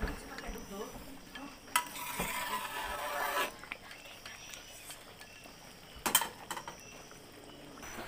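Metal cookware clanking against a wok of simmering broth. A hissing patch comes about two seconds in, and a sharp metal clank with a few smaller clinks about six seconds in.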